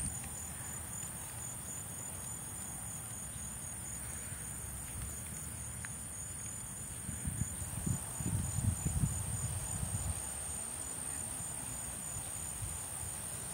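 Insects trilling steadily in a high, evenly pulsed trill. A few low rumbles come through about halfway in.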